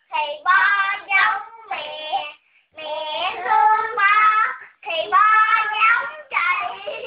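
Young children singing a Vietnamese children's song in high voices, in sung phrases with a couple of short breaks.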